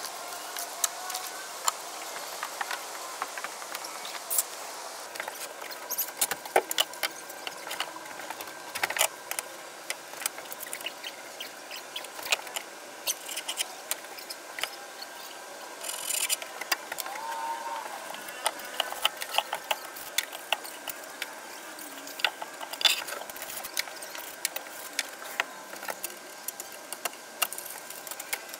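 Wood and tools being handled by hand: irregular light clicks, taps and knocks of boards, a track-saw rail and clamps being moved and set, with a brief squeak about two-thirds of the way through, over a faint steady hum.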